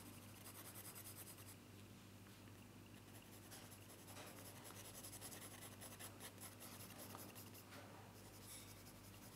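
Graphite pencil shading on paper: faint, repeated scratchy strokes of the lead worked over the paper, with a low steady hum underneath.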